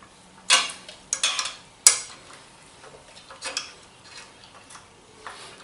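Metal tools and steel bracket parts clinking and clattering together in a few sharp knocks while the bracket's screws are being tightened down.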